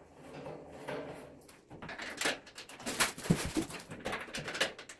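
Irregular metallic clicks, knocks and rattles of a steel fire pit table's panels, bracket and screws being handled during assembly. They start about two seconds in.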